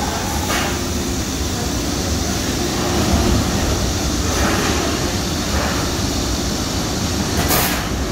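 Industrial laundry machinery running with a steady low rumble, from a CLM three-station automatic linen feeder at work. Two brief noisy bursts come through, about half a second in and near the end.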